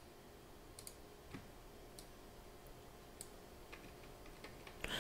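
A handful of faint, irregularly spaced computer keyboard and mouse clicks over quiet room tone.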